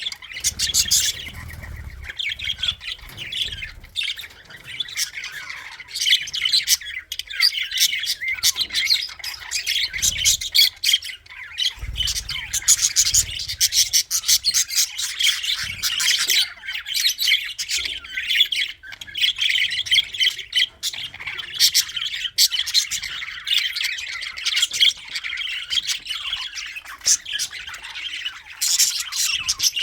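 A colony of budgerigars chirping and chattering together: many overlapping high calls, squawks and warbles with no pause, with a few soft low thumps now and then.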